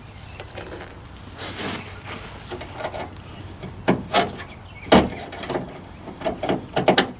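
Scattered metal clicks and clunks of hand work on a truck door's window mechanism while a part is fitted and bolted, loudest about four and five seconds in, with a quick run of clicks near the end. A steady, evenly pulsing insect trill goes on underneath.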